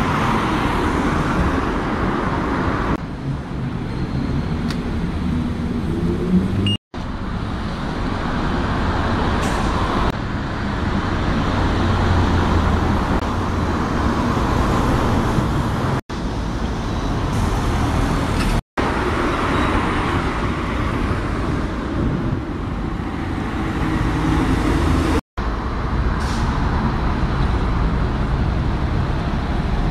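Double-decker bus engines running as the buses move slowly past, over steady road-traffic noise. The sound drops out for an instant four times.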